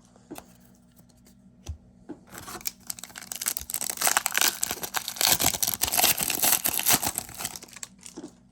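The plastic wrapper of a football trading card pack being torn open and crinkled, a dense crackling tear that starts about two seconds in and lasts about five seconds, after a few light clicks.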